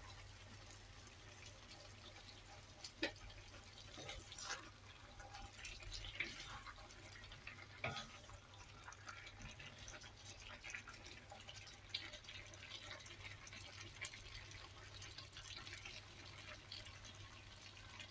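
Curry faintly bubbling in a wok, with scattered taps and scrapes of a wooden spatula stirring it, over a low steady hum.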